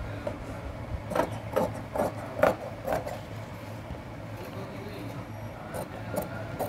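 Large tailor's shears snipping through folded trouser cloth laid on a table: a run of short snips about two a second, a quieter stretch midway, then a few more snips near the end, over a low steady hum.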